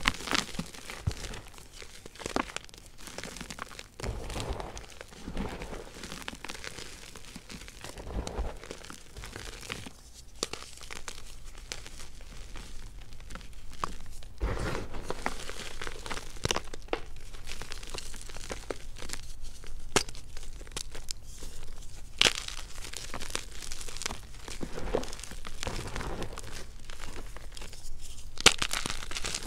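A slab of yellow gym chalk being squeezed and crumbled by hand into a bed of loose gym chalk and baby powder: dense, dry crunching and crackling as the chunks break down into powder, with sharper cracks here and there.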